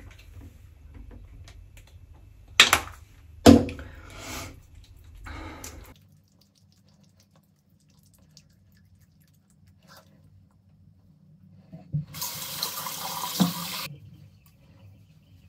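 Water at a bathroom sink as a face is washed and rinsed: splashing with two sharp, loud splashes in the first few seconds, then a quiet stretch, then a burst of running tap water for about two seconds near the end.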